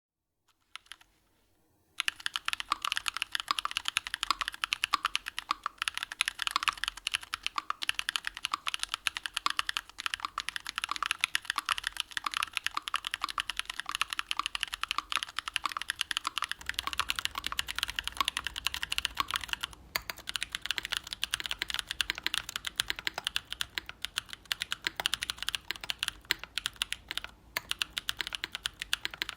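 Mechanical keyboard with JWK Voyager 62.5 g tactile switches (PC top housing, nylon bottom housing, POM stem, factory lubed) being typed on fast and continuously. The dense run of key clicks starts about two seconds in and pauses briefly about two thirds of the way through.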